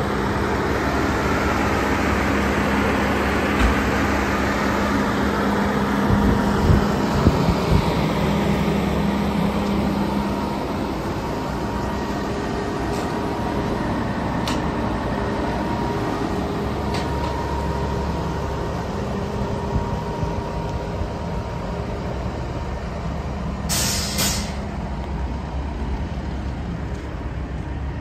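Volvo A40F articulated dump truck's six-cylinder diesel engine idling steadily, a little louder over the first ten seconds. A short hiss of air comes about twenty-four seconds in.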